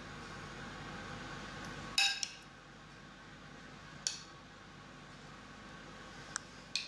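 Metal spoon clinking and scraping against a glass mixing bowl while egg mixture is spooned out: a couple of sharp clinks about two seconds in, another around four seconds, and a louder knock at the end. A faint steady hum stops abruptly about two seconds in.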